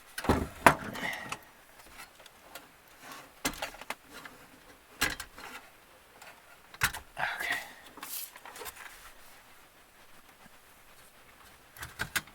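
Scattered sharp clicks and knocks of hands handling things, a second or more apart, with a cluster about a second in and a few more near the end.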